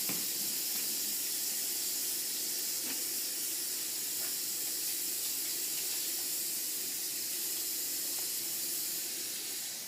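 Water running steadily from a tap: an even hissing splash.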